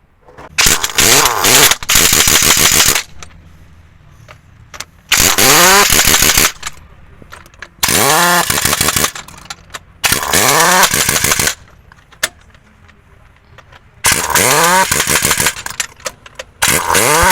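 A pneumatic impact wrench fired in six short bursts, each one to two and a half seconds long, its pitch rising and then falling within each burst, with short pauses between them.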